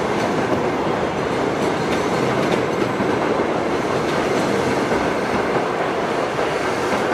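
Subway train passing: a loud, steady rumble and rattle of wheels on track.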